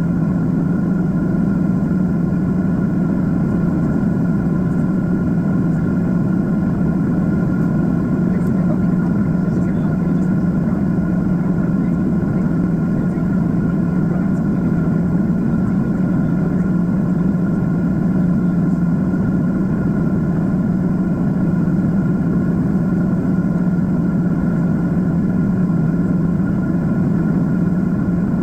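Boeing 767-400 in its climb after takeoff: the steady rush of its jet engines and airflow, with a strong low drone and a fainter high whine held unchanged throughout.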